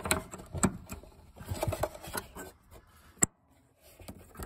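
Small clicks and handling noises of plastic quick-connect fuel-line fittings being pushed onto the fuel pump module, with one louder, sharp click about three seconds in.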